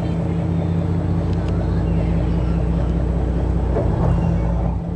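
A boat engine running steadily with an even, low hum.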